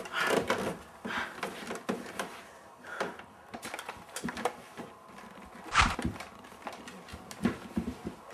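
Footsteps and scattered knocks of people moving about a room, irregular, with one louder thump about six seconds in.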